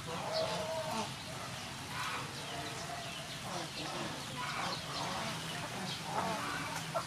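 Chickens clucking nearby, short calls coming every second or so.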